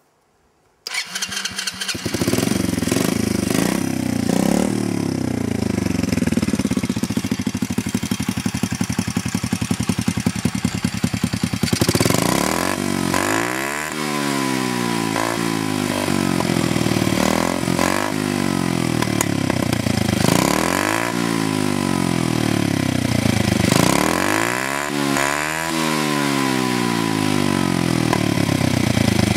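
Kinroad PY50 50cc four-stroke motorcycle engine starting about a second in and idling steadily, then revved up and let fall back several times from about twelve seconds on, heard close to its chrome exhaust.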